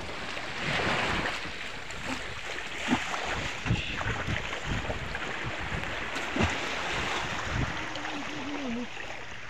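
Wind buffeting the microphone over small waves washing on a sandy shore and sloshing around people wading, with faint voices in the background.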